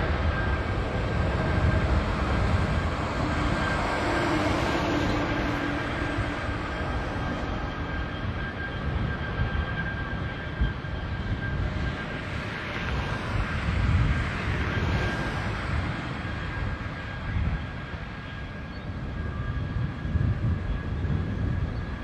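Boeing 777's twin GE90 turbofans at takeoff thrust during the takeoff roll and climb-out: a loud, steady rushing rumble with a thin high fan whine on top, slowly fading as the jet lifts away.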